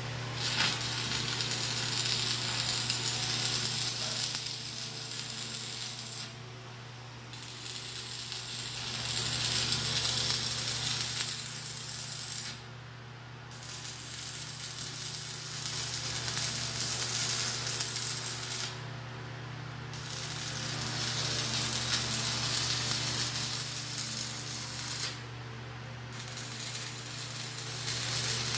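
Stick arc welding with a 1/8-inch 6013 electrode at about 140 amps: the steady crackling sizzle of the arc, broken by four short pauses roughly every six seconds, over a steady low hum.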